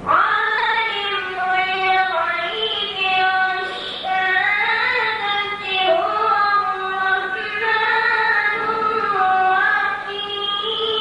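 A boy's high voice reciting the Quran in melodic chanted style (tajwid), in long, drawn-out phrases that glide up and down in pitch.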